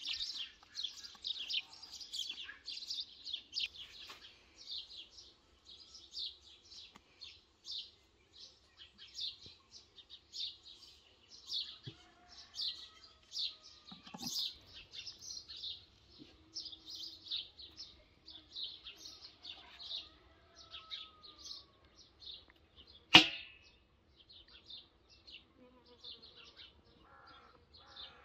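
Birds chirping continuously in many short, quick calls, with one sharp knock about 23 seconds in that is the loudest sound.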